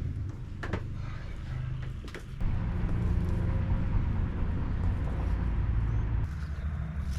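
Old pickup truck engine running with a low rumble, picking up and running louder about two and a half seconds in, then easing back near the end. A couple of sharp clicks come in the first two seconds.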